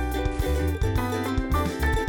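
Upbeat background music with a steady bass and drum beat and bright pitched melody notes.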